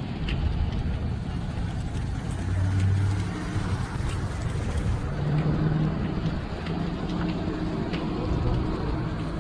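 Car noise: a steady low engine and road rumble with a hum that shifts in pitch, and a few faint clicks.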